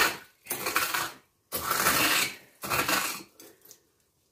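Crushed corn flakes crackling as they are scattered and pressed onto raw chicken thighs for a crunchy coating, in about five short bursts.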